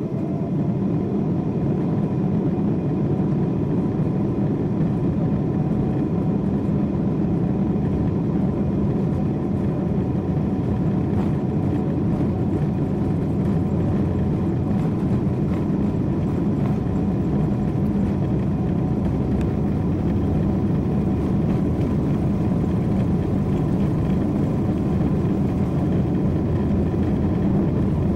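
Boeing 747-8's GEnx-2B turbofan engines heard from inside the cabin over the wing while the aircraft taxis. A whine rises in pitch as the engines spool up at the start, then settles into a steady engine rumble with a faint constant whine.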